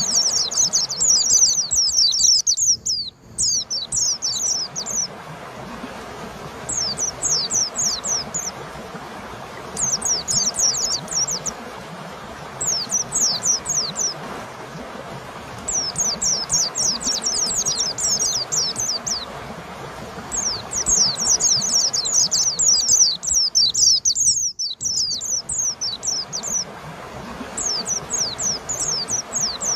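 White-eye (pleci) singing: bursts of rapid, high, downward-slurred chirping notes lasting a few seconds each, with short pauses between them, over a steady hiss. The sound drops out briefly twice.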